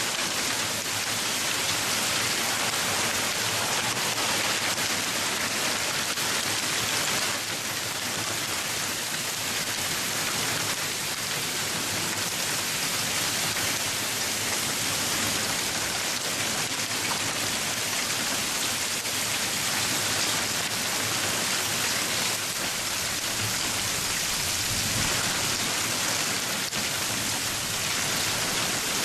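Hail falling and pelting the ground, a dense, steady patter of many small hits without let-up.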